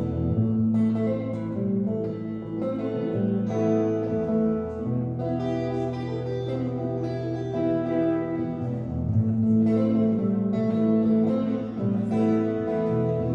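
Electric guitar played without singing: a melody of picked notes over held low bass notes.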